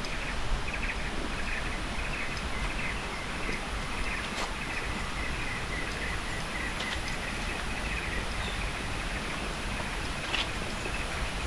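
Outdoor natural ambience: a steady rushing hiss with a low rumble under it, and a high chirping call repeating in quick pulses that later runs on almost continuously. A faint click or two stands out.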